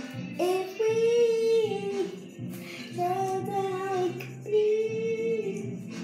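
A girl singing along to a song playing in the background, holding long sung notes over the music.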